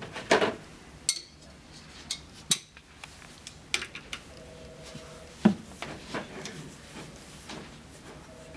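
Scattered metallic clicks and knocks of a ratchet wrench and the engine's belt drive as the belt is worked off the pulleys. The sharpest knock comes about five and a half seconds in.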